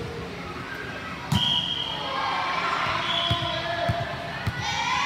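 A basketball bouncing on the court in a few irregular thuds, under players' and spectators' voices.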